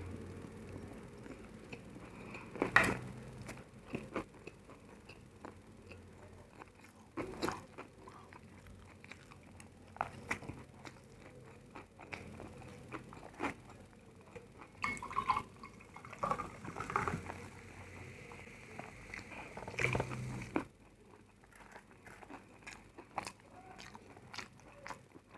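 Close-up eating sounds: irregular bites and chewing of crunchy food, with sharp crunches at uneven intervals and a few louder ones.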